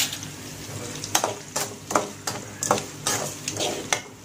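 Perforated metal skimmer stirring and scraping chopped onions frying in oil in a metal kadai: a run of about eight short scrapes against the pan, roughly two a second, over a light sizzle.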